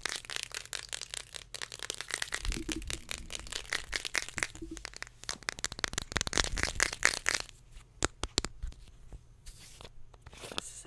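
Fast, close-up ASMR tapping and scratching of fingernails on a small plastic makeup product held against the microphone: a dense flurry of quick clicks and scratches that thins out to a few scattered taps after about seven seconds.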